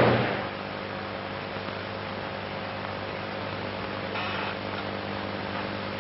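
Low steady electrical hum with faint hiss; a brief faint sound about four seconds in.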